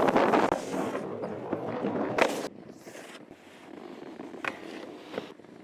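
Snowboard sliding and scraping over snow, loud for about two seconds and then cutting off, followed by a few sharp clicks.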